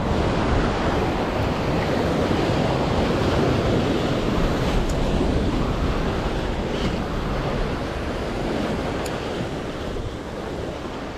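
Surf washing and breaking against the boulders of a rock breakwall: a steady rush that is loudest in the first half and eases a little near the end.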